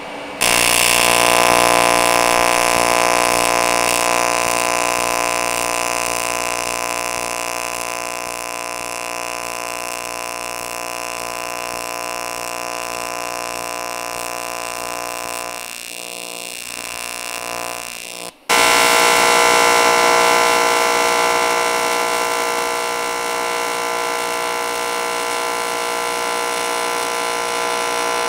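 AC TIG welding arc on an aluminium plate, a steady loud electric buzz while a bead is laid. It breaks off for a moment about 18 seconds in and then buzzes on.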